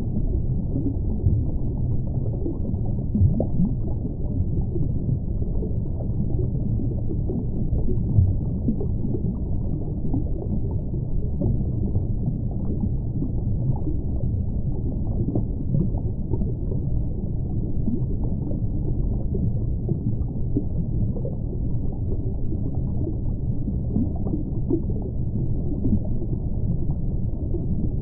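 Muffled underwater ambience picked up through a camera's waterproof housing: a steady low rumble with faint scattered crackling.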